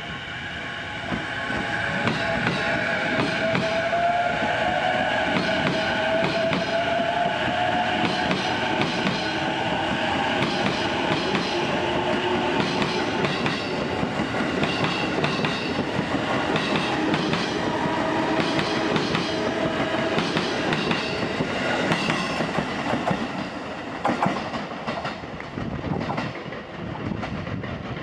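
Electric commuter train accelerating away from a platform: the inverter and traction motors whine in tones that rise in pitch as it speeds up, over the clack of wheels on rail joints.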